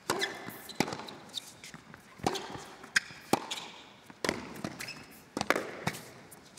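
Tennis rally on an indoor hard court: a serve, then racket strikes and ball bounces trading back and forth, about a dozen sharp pops with short echoes in the arena. Brief shoe squeaks on the court come between the shots.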